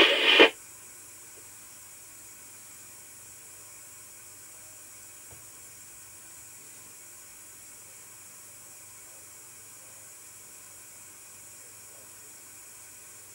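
Steady faint background hiss, with a brief burst of noise right at the start and nothing else happening.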